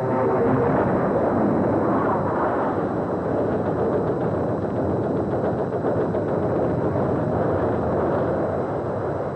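Dense, continuous din of gunfire and explosions, easing a little near the end.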